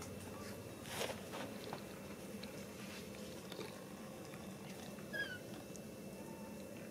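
A baby long-tailed macaque gives a short, high squeak that falls in pitch, a little after five seconds in, over a steady low background hum, with a brief rustle about a second in.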